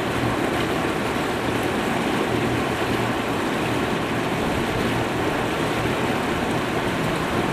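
A lake tour boat under way: a steady rush of water from the hull and wake, with the engine humming low and even underneath.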